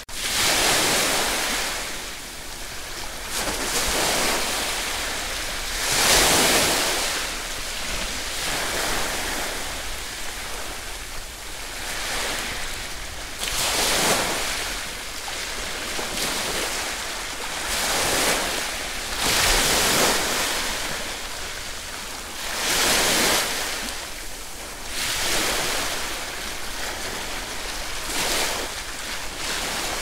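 Ocean surf: waves breaking and washing up a shore, the hiss of the water swelling and fading every two to four seconds.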